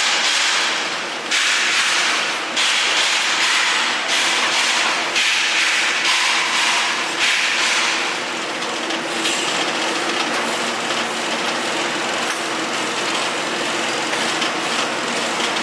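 Welding-shop metalwork: a run of hissing, scratching strokes about a second long each. About halfway through they give way to a steadier hiss, over a faint steady hum.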